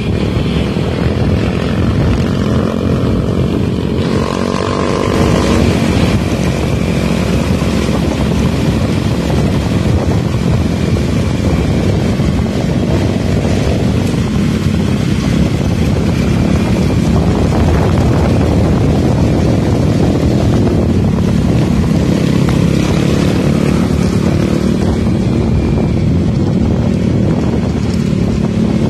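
Motorcycle engine running steadily at riding speed, heard from on board the bike, with wind rushing over the microphone.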